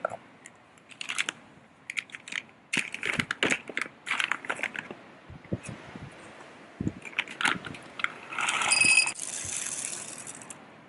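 Clicks and knocks of coffee gear being handled, then about two seconds of dense steady rattling: coffee beans being poured into a hand coffee grinder.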